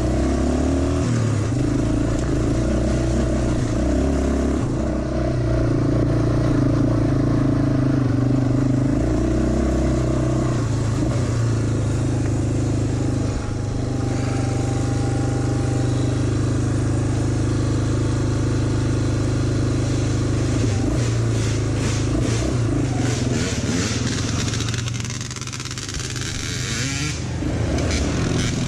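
ATV engine running at low trail speed, a steady low drone that shifts in pitch a few times as the throttle changes. There are scattered clicks and rattles over the last several seconds, and the engine sound eases briefly about 25 seconds in.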